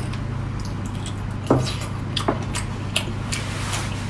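Close-up mouth sounds of a person eating spicy seafood: wet smacking and sucking clicks, with two louder pops about one and a half and two and a half seconds in, over a steady low hum.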